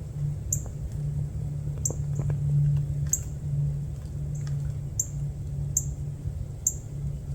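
A small bird repeating a short, very high chirp, slightly falling in pitch, about once a second, over a steady low hum.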